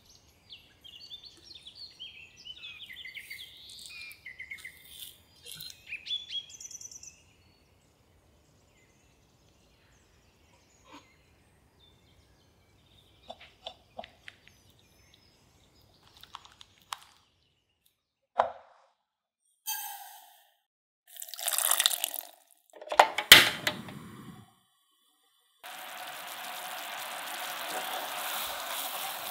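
A run of kitchen sounds: high chirps at first, then light clicks of a silicone whisk beating egg yolks in a glass bowl, a few loud bursts, and finally a steady hiss from a pot of sugar syrup heating on a portable gas burner.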